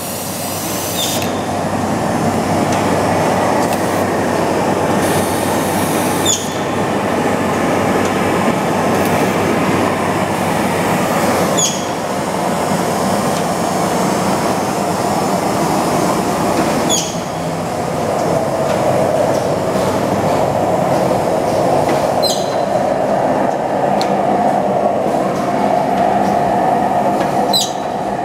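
Rigid box making machine running: a steady mechanical whir and clatter, with a short high chirp repeating about every five seconds.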